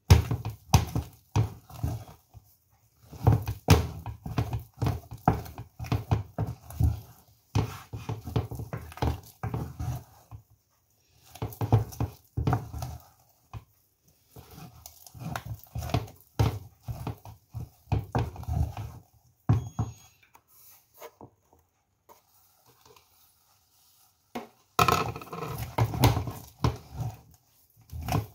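Wooden spatula stirring and beating thick potato-and-oat fufu in a non-stick saucepan: rapid, repeated thuds and knocks against the pan in bursts. There is a short pause about halfway, then a longer lull of a few seconds before a last burst near the end.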